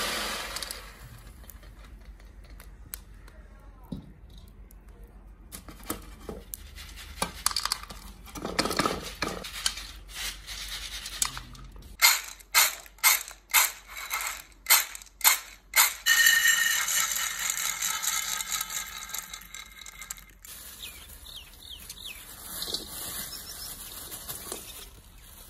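Dry roasted corn kernels rattling and scraping against pans and bowls as they are sieved and poured. Partway through comes a quick run of about eight sharp knocks, followed by a few seconds of steady hiss.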